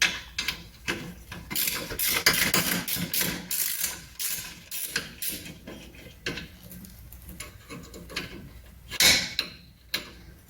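Hand ratchet wrench clicking in quick runs of strokes as a brake caliper bolt is worked loose. The clicking is dense in the first half and thins out later, with a louder metal knock about nine seconds in.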